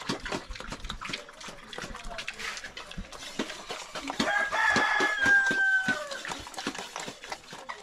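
A rooster crowing once, a long call of about two seconds beginning about four seconds in, amid frequent short clicks and knocks.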